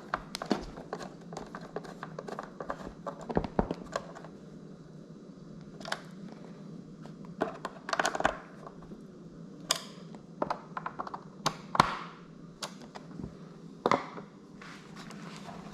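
Scattered clicks, taps and light knocks as hands handle and fit plastic and glass parts of a wall charger's faceplate, over a faint steady hum.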